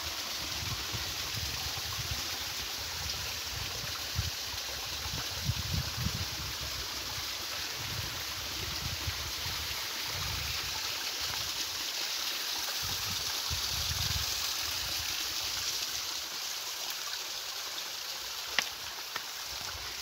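Shallow creek water running and trickling steadily over flat rock slabs and stones. Irregular low rumbles come through in the first half, and a single sharp click sounds near the end.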